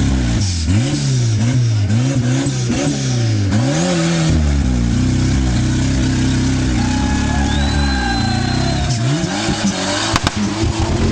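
Off-road vehicle's engine revving, its pitch rising and falling about once a second as the throttle is blipped, then held at steady revs for a few seconds before dropping back and wavering.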